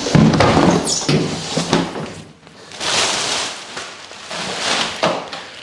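Large clear plastic bag rustling and crinkling as it is pulled off a hot water cylinder, loudest in the first two seconds, with a brief lull and then more rustling.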